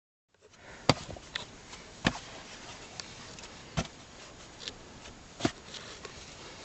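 A few sharp knocks or clicks, four of them clearly, one to two seconds apart, over a faint steady hiss.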